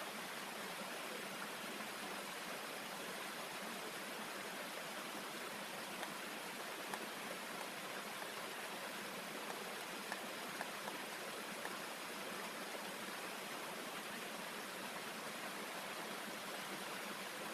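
Steady rush of a small waterfall cascading over rocks into a stream. A few faint knocks of a knife on a wooden tree-stump chopping block come through in the middle.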